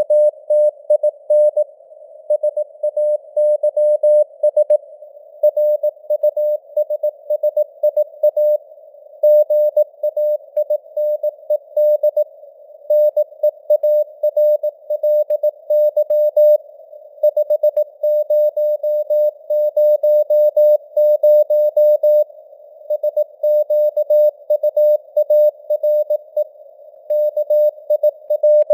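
Morse code (CW) sent at 18 words per minute as a single mid-pitched keyed tone, in dots and dashes with short gaps between letters and words. A hiss of simulated radio static sits around the tone and carries on between the characters.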